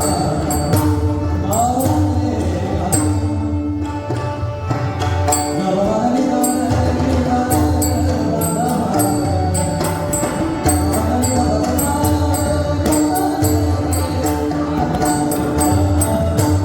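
Marathi abhang (devotional song) sung over pakhawaj and tabla, with a steady rhythmic beat and held tones under a gliding vocal line.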